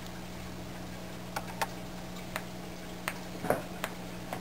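A few scattered light ticks: a ping-pong ball hanging on a thread knocking against the prongs of a metal tuning fork. A steady low hum sits under them.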